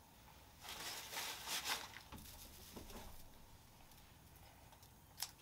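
Dry harvested wheat stalks rustling and crackling as they are handled, loudest in the first couple of seconds, then one sharp click near the end.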